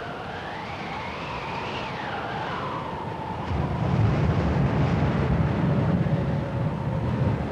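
Eerie film-soundtrack wail, a high tone that rises and falls over the first three seconds, then a low rumble that swells about three and a half seconds in and continues.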